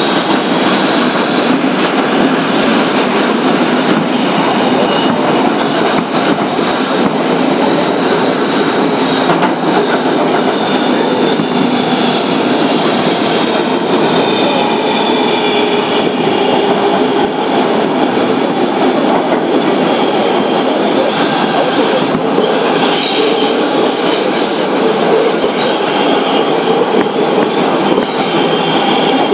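Kawasaki R-143 subway car running on the rails: a steady rumble of wheels on track under the high whine of its Bombardier MITRAC 1508C traction motors. The whine drifts slowly in pitch, and a brighter, higher whine comes in about three-quarters of the way through.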